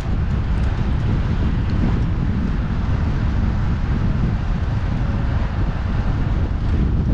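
Wind rushing over a helmet-mounted GoPro Hero 8's microphone as the rider pedals a fixed-gear bicycle at speed: a steady, heavy low rush with no break.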